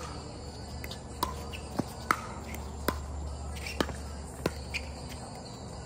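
Pickleball rally: paddles strike the hollow plastic ball in a run of sharp pops, about half a dozen hits, the loudest about two seconds in.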